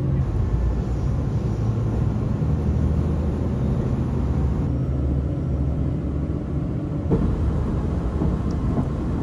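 Steady low rumble of a moving vehicle, its character shifting abruptly a couple of times.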